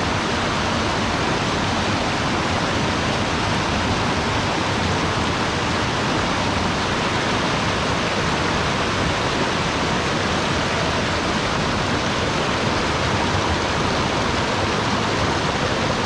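A waterfall and a rocky mountain creek rushing, a steady, unbroken roar of water.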